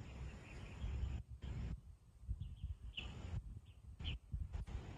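Low, gusty wind rumble outdoors, with about five short bird chirps in the second half.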